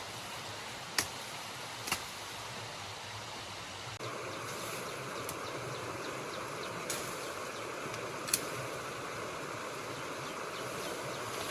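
Steady rush of a running stream, with a few short sharp clicks or knocks over it. The water sound steps slightly louder about four seconds in.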